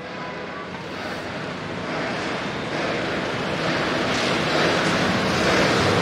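Close traffic noise from a London double-decker bus passing, an even rush of engine and tyre sound that grows steadily louder.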